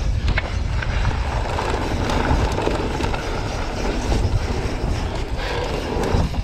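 Wind buffeting an action camera's microphone and knobby mountain-bike tyres rolling fast over dry dirt and loose rock on a descent, with scattered clicks and rattles from the bike.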